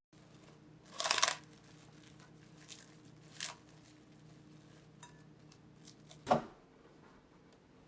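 Kitchen handling noises: a short rustle about a second in, a fainter one midway, and a sharp knock near the end, over a faint steady hum that stops at the knock.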